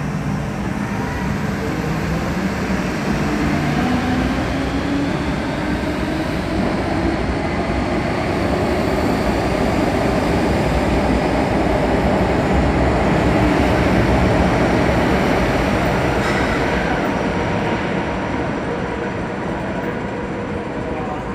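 MTR Kwun Tong Line metro train pulling out of the station into the tunnel: wheels and motors running steadily, with a whine rising in pitch as it gathers speed. The sound builds to its loudest past the middle, then eases off a little as the train draws away.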